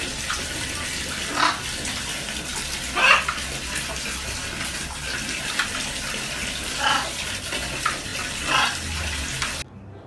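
A thin stream of water pouring and splashing into a plastic bucket of water while a blue-and-gold macaw bathes under it, wings spread. The splashing is steady and swells louder four times, then stops abruptly near the end.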